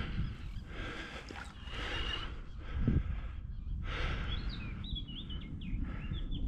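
Wind rumbling and buffeting on the microphone, with a small bird singing a run of short chirps in the second half.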